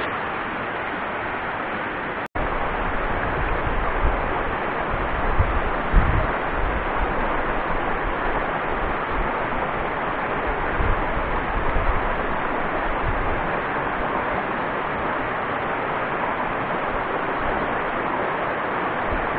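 Steady rushing of a mountain creek, with scattered low bumps on the microphone; the sound cuts out for an instant about two seconds in.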